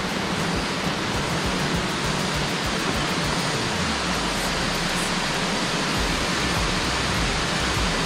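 Steady rush of water in a rocky mountain stream, an even hiss.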